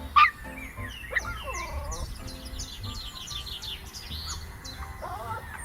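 Bird sound effect: a loud single call just after the start, then a rapid run of short, high chirps with some lower clucking calls mixed in.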